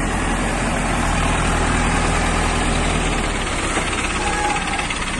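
Diesel engine of an earth-moving loader running steadily under a broad hiss; the low engine hum drops away about three and a half seconds in.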